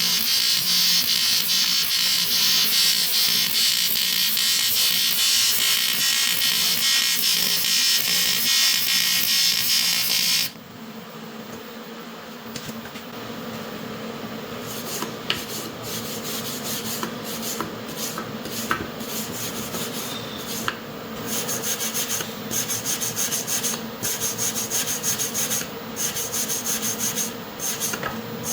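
A small power tool runs with a steady high whine and hiss and stops suddenly about ten seconds in. It is followed by repeated rubbing and filing strokes on a workpiece, which become a quicker, even back-and-forth rhythm after about twenty seconds.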